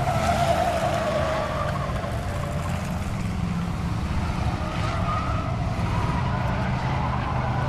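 Several figure-8 'train' race cars running together around an asphalt track: a steady low engine drone with a wavering higher whine over it.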